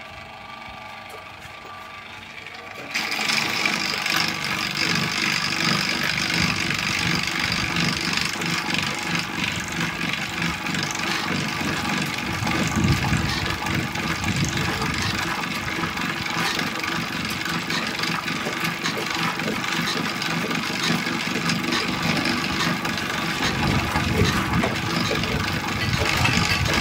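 Electric starter motor spinning over a Bamford SD3 6 hp single-cylinder stationary diesel to start it: a steady mechanical run that begins abruptly about three seconds in and grows a little louder and fuller near the end.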